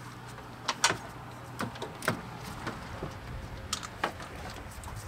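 Scattered light clicks and knocks of hand tools and parts being handled in a car's engine bay while the coil pack is worked loose and its wiring disconnected, over a faint steady low hum.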